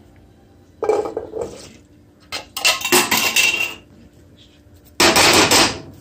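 A metal saucepan clunks and scrapes on a gas stove's grate about a second in. Then canned peas are tipped from the tin into the pan in two loud pours, the second near the end, rattling and splashing against the metal.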